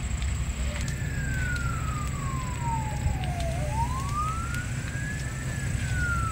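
Emergency-vehicle siren in a slow wail, starting about a second in, sliding down, back up, then down again, faint over a steady low rumble.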